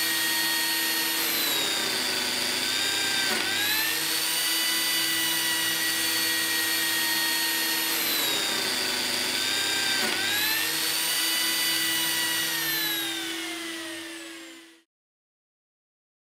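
Lamello Zeta P2 biscuit joiner motor running at a steady high whine that dips sharply in pitch and recovers twice, about 3.5 and 10 seconds in, as it cuts a P-System groove. Near the end it slowly falls in pitch and winds down to a stop.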